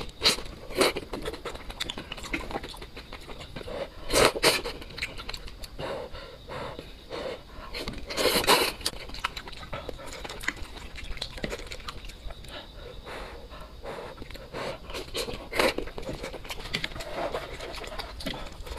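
Close-miked eating of soft cabbage from scalding spicy broth: wet chewing and mouth clicks, broken by loud sucking slurps and quick panting breaths, the loudest about four seconds and about eight seconds in.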